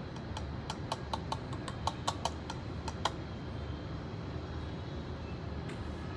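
A quick run of light clicks and taps of kitchenware, about fifteen in three seconds, while passion fruit syrup is added to the tea, over a steady low hum.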